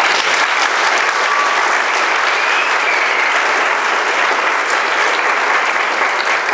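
Audience applauding, a steady mass of handclaps, as a speaker finishes.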